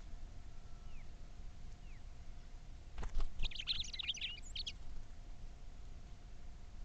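A bird chirping: a quick run of high, twittering chirps about three seconds in, lasting a second and a half, with a few faint whistled notes before it.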